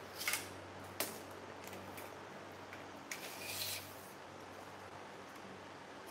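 Marker pen scraping across a cardboard sheet: a short stroke right at the start and a longer one a little past three seconds in, with one sharp tap about a second in.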